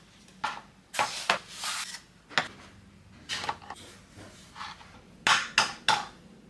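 Kitchen handling sounds: a string of light knocks and clinks of bowls and utensils, about a dozen, irregularly spaced, the loudest cluster a little after five seconds in.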